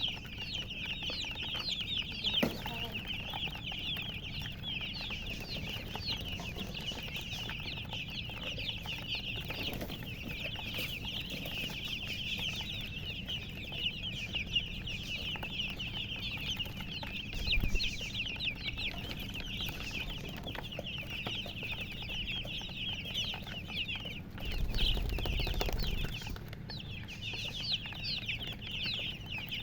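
A brood of baby chicks peeping continuously, many high-pitched chirps overlapping without a break. Low thumps sound about 17 seconds in and again between about 24 and 26 seconds.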